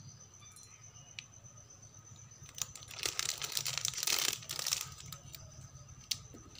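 A small clear plastic bag crinkling and rustling in the hands for about two seconds, starting about two and a half seconds in, as a small item is worked out of it. A single sharp click comes near the end.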